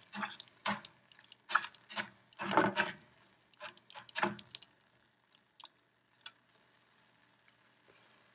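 A metal fork scraping and stirring scrambled duck eggs against the bottom of a stainless steel skillet: about eight short scrapes over the first half, then only a few faint ticks.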